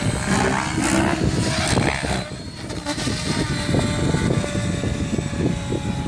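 Compass 7HV electric RC helicopter flying 3D aerobatics: the rotor blades whooshing and the motor whining, the loudness rising and falling as it manoeuvres.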